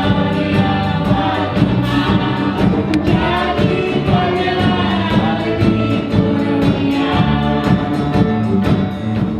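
A choir singing a hymn, many voices held on sustained notes.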